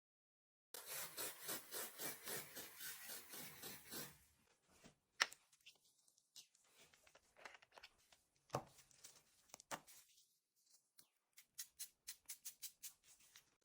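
Brush scrubbing a computer keyboard in quick, even back-and-forth strokes, about four a second, for about three seconds. Then come scattered sharp clicks and taps, and a quick run of light ticks near the end.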